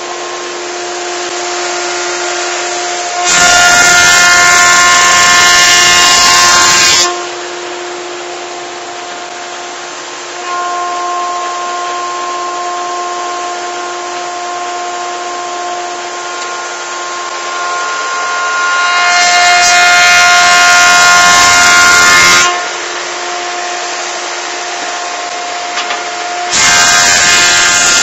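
Single-sided woodworking thicknesser running with a steady whine from its cutterhead and motor. Three times a board is fed through and planed, each pass a much louder cutting noise lasting about three to four seconds: about 3 s in, around 19 s, and again near the end.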